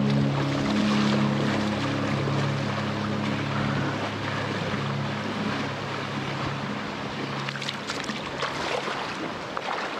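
Swift, rain-swollen river rushing over a shallow rocky stretch, with splashing from feet wading into the water near the end.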